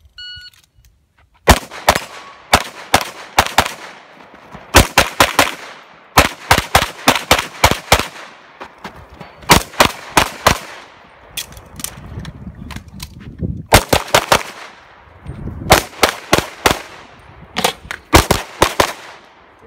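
Open Division competition pistol fired in fast strings of shots, starting about a second and a half in. The shots come in tight groups of two to six with short pauses between, each shot trailing off in a short echo, as the shooter moves between positions and engages targets.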